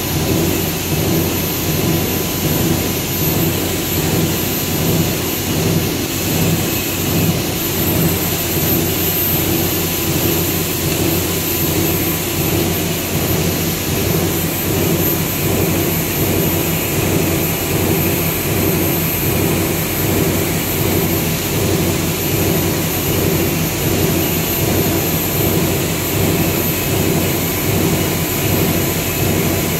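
Meltblown polypropylene fabric production line running: a loud, steady machine roar with a thin high whine held above it.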